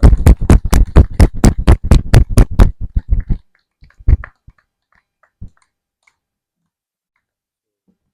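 Loud, rapid, even hand-clapping, about six claps a second, stopping about three and a half seconds in, followed by a few scattered claps or knocks.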